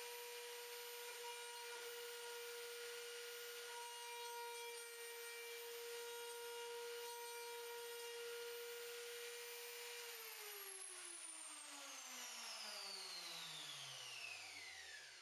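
Electric motor of a small woodworking machine running at a steady high speed with a hissing whir, then switched off about ten seconds in, its pitch falling steadily as it spins down.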